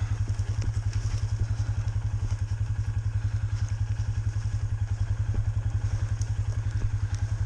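Vehicle engine idling steadily with an even low pulse, a few faint clicks over it.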